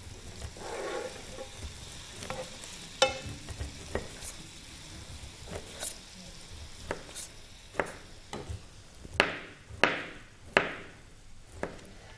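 Chef's knife slicing through a fresh pineapple's rind and flesh onto a cutting board: irregular crunchy cuts and scrapes, with three louder strokes about nine to eleven seconds in.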